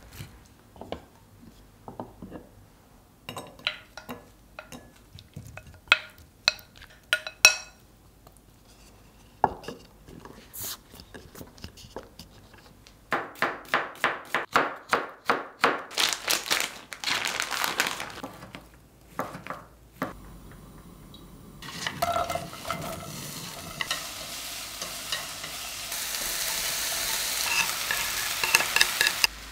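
A spoon scrapes and clicks as it mixes red-seasoned vegetables in a glass bowl. A knife then chops an onion on a wooden cutting board in a quick, even run of strokes. In the last third, sliced onions sizzle as they stir-fry in a pan, and the sizzle grows louder toward the end.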